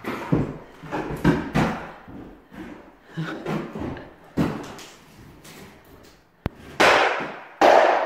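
Wood being smashed and torn out during an interior strip-out: a run of knocks and clattering crashes, a sharp click, then two louder, longer crashes near the end.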